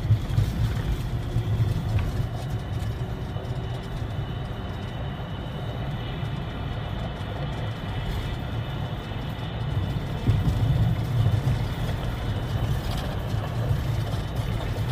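Steady low rumble of engine and road noise from a vehicle on the move, swelling a little now and then.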